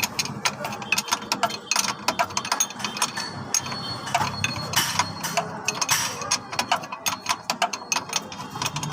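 Ratchet wrench clicking in quick, irregular runs as bolts are tightened on a truck's fuel injection pump.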